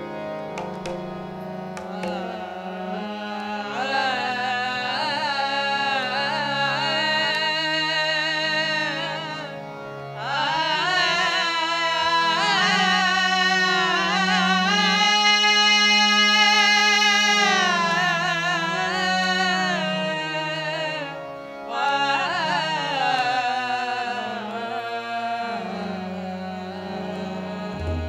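Sikh kirtan: voices singing long, ornamented melodic phrases to the accompaniment of harmoniums and tabla. The singing pauses briefly about ten seconds in and again about twenty-one seconds in.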